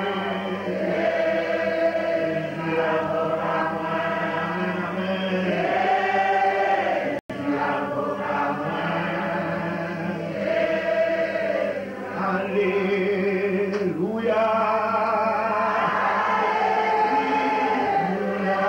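A man singing a slow worship chant into a microphone, with other voices singing along in held, gliding notes. The sound cuts out completely for an instant about seven seconds in.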